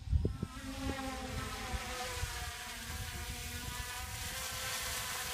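Quadcopter drone's propellers buzzing in flight, a whine of several pitches that drifts a little and slowly grows louder. A few low thumps come near the start.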